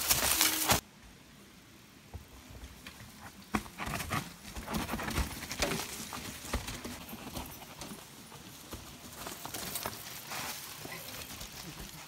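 Mountain bike rolling down a rocky forest trail: irregular knocks and clatter as the tyres and frame go over rocks and roots, with crunching through leaf litter. It opens with about a second of loud rushing noise that cuts off suddenly.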